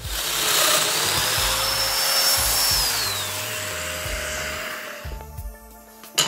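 Festool Domino joiner running and plunge-cutting a mortise into a plywood board. Its high whine slides down about three seconds in as the motor winds down after switch-off. A sharp knock comes near the end.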